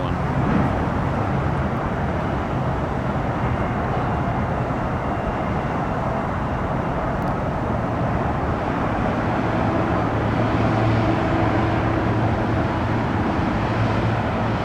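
Steady outdoor vehicle and traffic noise, with a low engine hum that grows a little stronger about ten seconds in.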